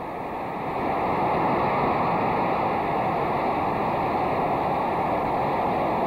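Large baseball stadium crowd cheering, a steady roar that swells about a second in and holds.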